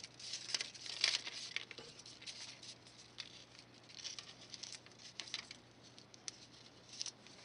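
Faint rustling and scattered light ticks of a roll of glue dots being handled, busiest in the first second or so and thinning out after.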